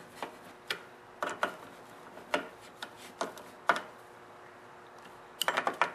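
A nut driver turning in the two bolts of the air-filter base on a Briggs & Stratton Quantum lawnmower engine: scattered light clicks and taps at irregular times, with a quick run of clicks near the end.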